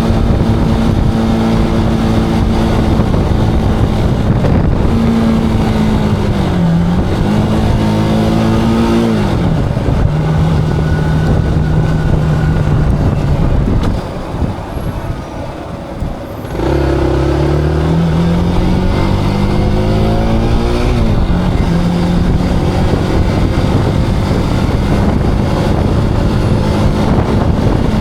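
Zontes cruiser motorcycle engine on the move: it runs steadily, its note climbs and then drops at a gear change, and it goes quieter for about two seconds past the middle. The revs then rise again through another upshift and settle back to a steady cruise.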